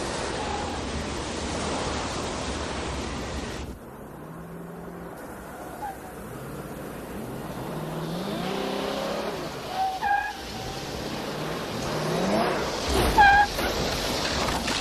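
Car driving in highway traffic with steady road noise, then a car engine revving up again and again as it accelerates and approaches, with brief squeals near the end.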